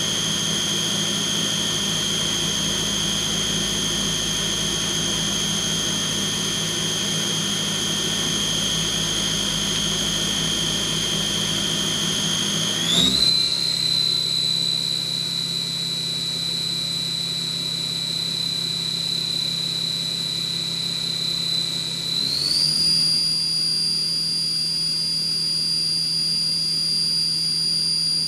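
CNC vertical machining centre spindle running with a steady high whine over a low hum. The whine steps up in pitch about halfway through and again near the end as the spindle speed is raised.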